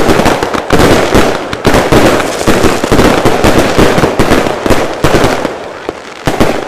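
Fireworks going off in a dense, rapid barrage of bangs and crackles, several a second. The barrage thins out and fades toward the end.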